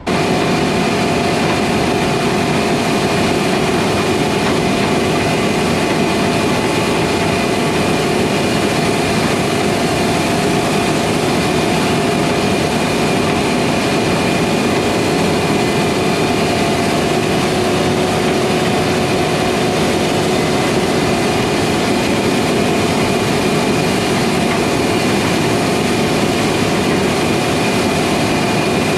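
Heavy diesel harvest machinery running steadily at working speed, a dense, even noise with a steady whine on top.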